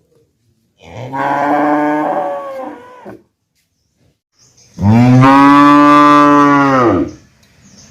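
A cow mooing twice: a first moo of about two seconds, then a louder moo of about two seconds starting near the five-second mark.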